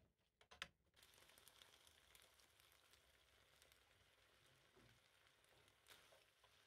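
Faint, steady sizzle of spaghetti in shrimp and cherry-tomato sauce cooking in a frying pan on the hob. A few light clicks of the utensil against the pan in the first second and once more near the end.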